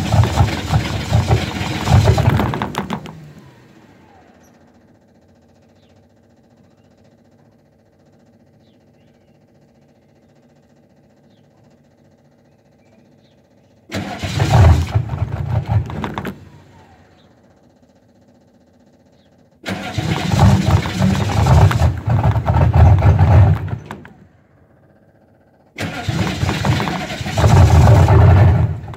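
A GM 6.2-litre V8 diesel being cranked by its starter in four separate attempts of a few seconds each, dropping back to near quiet between them as the engine fails to keep running. It is a hard cold start at about 28–30 degrees with the block heater left unplugged overnight.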